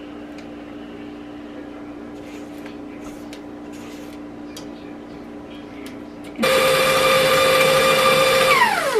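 Spatula scraping faintly against the mixer's stainless steel bowl, then a KitchenAid Professional 5 Plus stand mixer's motor switched on about six seconds in. It runs with a loud, steady whine as it beats cheesecake batter, then falls in pitch and winds down near the end as it is switched off.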